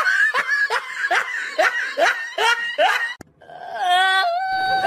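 A quick run of short cries, each rising in pitch, about two or three a second, then a break and a long, steady-pitched meow from a cat.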